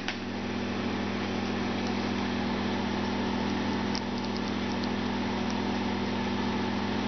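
Steady electrical or mechanical hum from equipment in the room, unchanging, with a few faint clicks about four seconds in.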